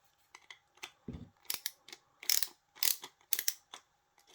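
Offset ratchet bit driver working a screw into wood: short bursts of ratchet clicking with each back-and-forth stroke of the handle, coming about every half second.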